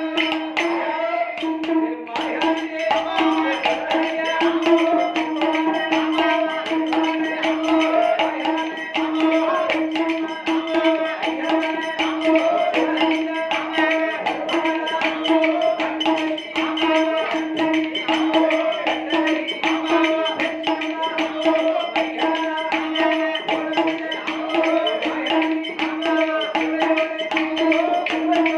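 Villupattu bow-song ensemble playing an instrumental passage: fast, steady percussion from the struck bow and its accompanying drums, over a held drone tone.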